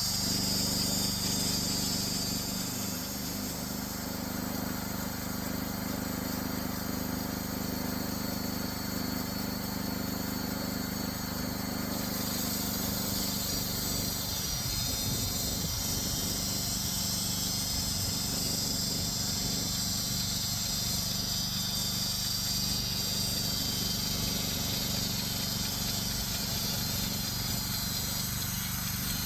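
Homemade band sawmill running steadily as its blade cuts through a black walnut log, the motor holding an even pitch; its tone shifts a little about halfway through.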